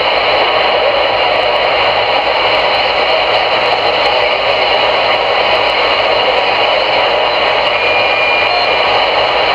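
Steady static hiss from a CRE 8900 CB radio's speaker on channel 22, heard in a gap between transmissions.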